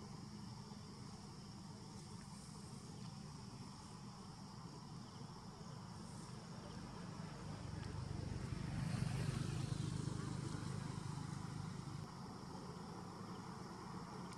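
Insects droning steadily, with a low rumble underneath that grows louder for a few seconds around the middle.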